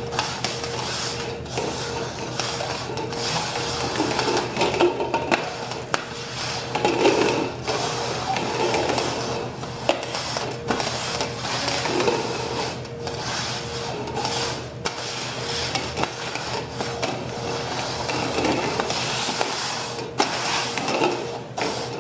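Red plastic cups slid and shuffled quickly over a wooden tabletop: continuous scraping and rubbing, with many light knocks as the cups are pushed about.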